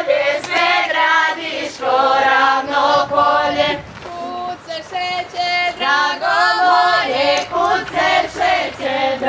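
A group of women's voices singing a Croatian folk song together, with some notes held long.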